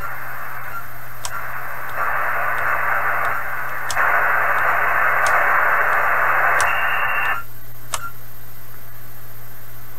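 Kenwood TS-430S HF transceiver's receiver hiss and band noise through its speaker, stepping louder about two and four seconds in and dropping away about seven seconds in as the frequency is stepped in 1 MHz jumps, with a sharp click every second or two. The radio holds steady with no drop-outs: the changes in level follow the signal on the antenna, the relay contacts now cured.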